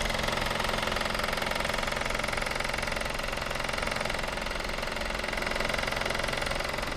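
2013 KIA Cee'd idling with a steady rattling, clattering noise from under the driver's-side wheel arch, whose source the owner has not found; it is heard only at idle.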